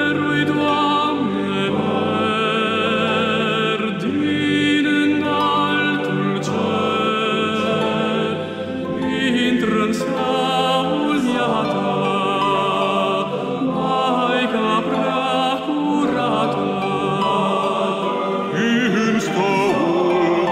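Male choir singing a slow piece in full harmony, the voices held with vibrato.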